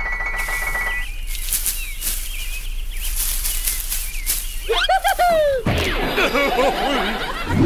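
Cartoon sound effects. A buzzing tone for about a second gives way to a few seconds of wing flapping. About five seconds in there is a downward-gliding squeal and a low thump, then high squeaky chattering.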